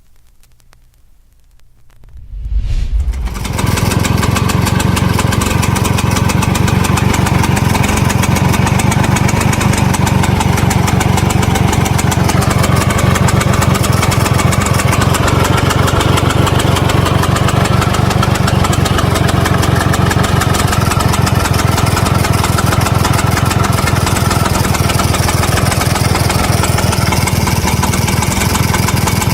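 Vespa VBB scooter's 150 cc two-stroke single-cylinder engine starting about two to three seconds in, then idling steadily. It carries the idle rattle that the owner is seeking help with.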